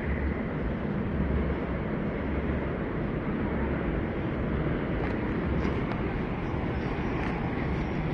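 New York City subway 4 train running, a steady rumbling noise with no pauses.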